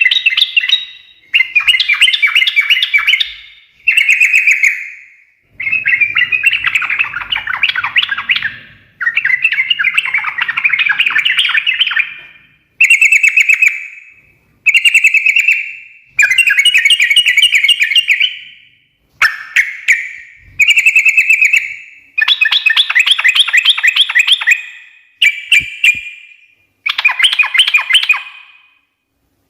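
Yellow-vented bulbul (trucukan) singing in a long run of fast chattering phrases, each lasting one to three seconds, with short pauses between them.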